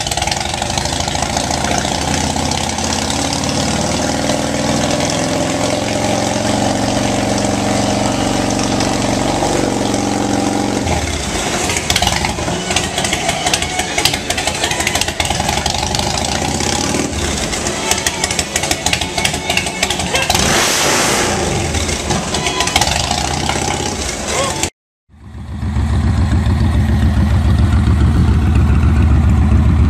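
Motorcycle engine running with flamethrower exhausts firing. A steady engine note for the first ten seconds or so gives way to a rapid string of exhaust pops and bangs as flames shoot from the pipes. After a short break near the end, a second motorcycle engine runs deeper and louder.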